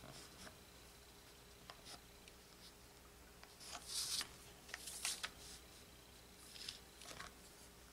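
Faint scratchy strokes of tailor's chalk drawn along a ruler on rayon fabric. They come in a few short spells, about four, five and seven seconds in.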